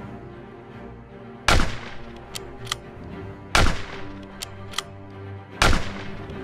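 Three gunshots about two seconds apart from a long gun fired into the air as a salute for the dead, each shot followed by two short sharp clicks.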